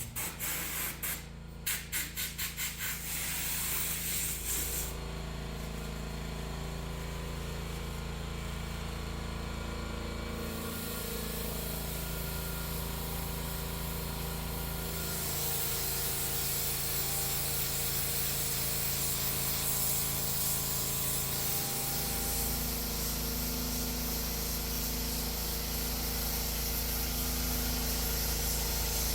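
Paint spray gun spraying base coat: a few short spurts in the first couple of seconds, then a steady hiss of atomizing air over a constant machine hum.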